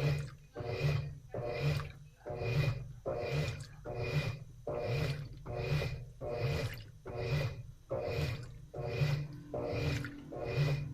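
Top-load washing machine agitating through its wash cycle: the agitator swishes the water and laundry back and forth in even strokes, a little more than one a second, with the motor's hum under each stroke.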